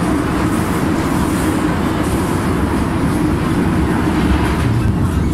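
MTR M-Train electric multiple unit running along the track, heard from inside the passenger car: a loud, steady rumble of wheels on rail and running gear.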